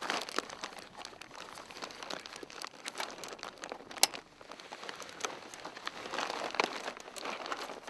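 Stiff hang-glider sail cloth crinkling and rustling as hands work it over the aluminium tube ends of the frame. Small clicks run through it, with one sharp click about four seconds in.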